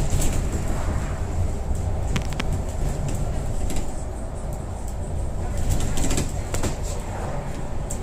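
Steady low rumble of a moving road vehicle heard from inside its cabin, with a few short clicks or rattles about two seconds in and again near six seconds.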